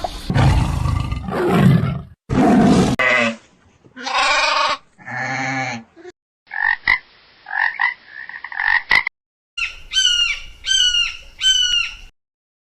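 A string of short animal calls from different animals, cut one after another with abrupt starts and stops: a loud rough call first, then several pitched calls, and near the end three calls, each falling in pitch.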